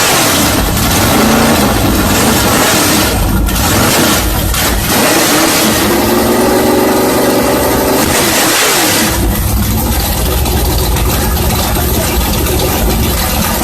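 Loud car engine through a loud exhaust, revving up and down repeatedly, its pitch rising and falling.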